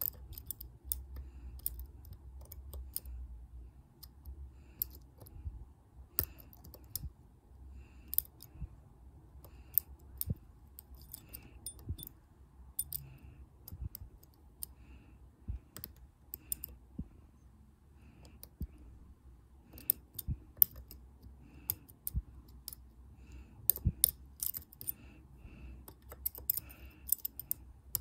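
Irregular small metallic clicks and scrapes of a dimple pick working the pins inside the keyway of a brass Burg-Wächter Boccia 450 dimple padlock under tension, a pick-and-tension attempt that is near to opening the lock.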